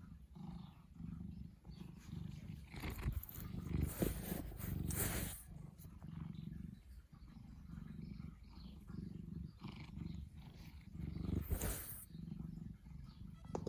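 Bengal cat making a low, rhythmic rumbling that swells and fades about every half second to second, in a frustrated wait to be let outside. A couple of brief rustling noises come about four seconds in and again near the end.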